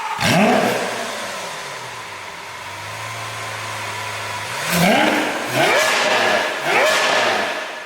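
Lamborghini Aventador SV's V12 engine revved once, dropping back to a steady idle, then blipped in three quick, sharp revs over the last three seconds.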